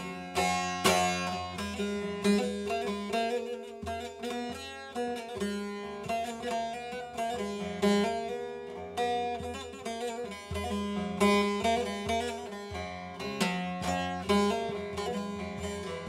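Bağlama (long-necked Turkish saz) played solo: a quick plucked instrumental passage between sung verses of a folk song, with lower notes ringing on underneath the melody.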